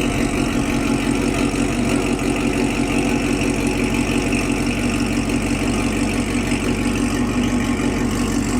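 Supercharged 2020 Camaro SS 6.2-litre V8 running steadily through a new AWE Touring exhaust with a Corsa X-pipe, a steady drone with no revving.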